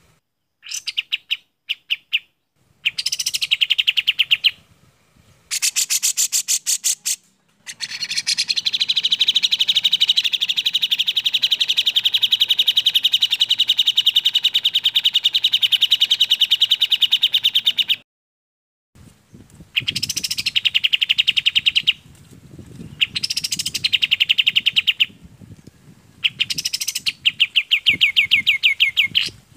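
Songs of two bulbuls, the kapas tembak and the cucak jenggot (grey-cheeked bulbul), in clear phrases of rapidly repeated notes separated by short pauses. In the middle there is one long, unbroken run of rapid notes lasting about ten seconds.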